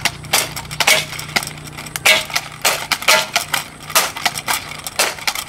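Toy gel-ball machine gun firing in a rapid, uneven string of sharp clicks, about three a second.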